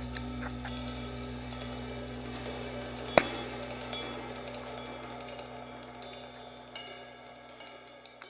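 Background music with drums and cymbals, fading out steadily. A single sharp click about three seconds in is the loudest moment.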